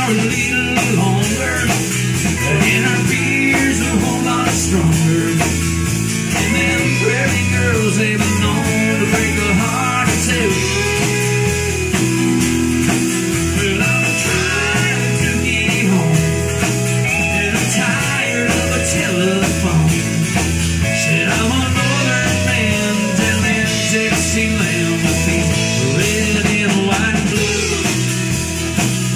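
Live band playing a rock-and-roll blues number: acoustic guitar and electric bass over a steady, even beat, heard through a phone's microphone.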